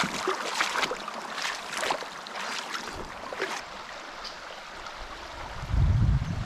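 Creek water running and splashing, with irregular sloshing splashes in the first few seconds. Near the end a loud low rumble comes in and takes over.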